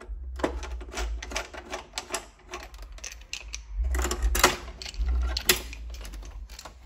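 Screwdriver backing out the terminal screws on a Rain Bird ESP-ME irrigation controller's plastic terminal block, with the wires pulled free. The result is a string of small clicks, ticks and scrapes, with two sharper clicks a little past the middle.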